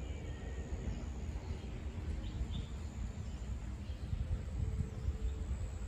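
Outdoor ambience: a steady low rumble on the microphone, with faint scattered bird chirps over it.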